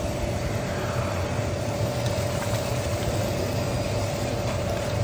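Motor of an automatic stirring cooking kettle running steadily as its paddle turns a thick chilli sauce: an even hum with one constant mid-pitched tone over a low drone.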